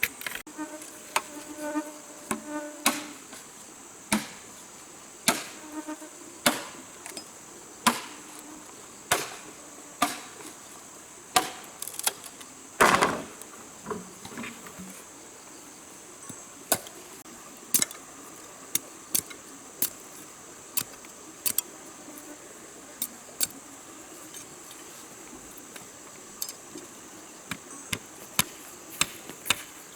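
Steady high drone of rainforest insects, with repeated sharp knocks of a tool striking, about one a second at first, the loudest about halfway through. Later the strikes come lighter and quicker.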